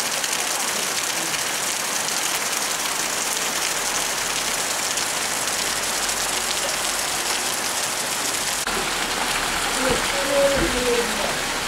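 Heavy rain pouring down in a steady, dense hiss. A few short pitched sounds come through it near the end.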